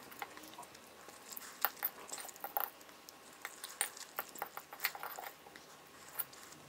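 Quiet eating sounds: a metal fork picking up pasta and tapping and scraping against a ceramic bowl in faint, irregular clicks, with soft chewing.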